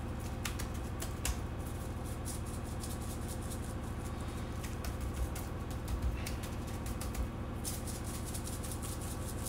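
Spice rub being shaken onto raw spatchcocked chicken and rubbed in with a gloved hand on plastic cling film: scattered light taps and crinkles, over a steady low hum.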